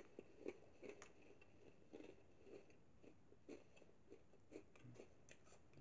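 Faint chewing of a crunchy Stauffer's chocolate animal cracker: soft, irregular crunches, roughly two a second, with the mouth closed.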